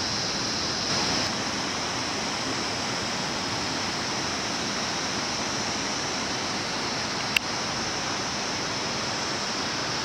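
Steady rushing outdoor noise with a continuous high-pitched hiss on top. A single sharp click comes about seven seconds in.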